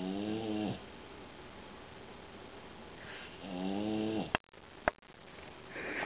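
Boxer dog snoring in its sleep: two long, pitched snores about three seconds apart, the second followed by two sharp clicks half a second apart. Another snore starts near the end.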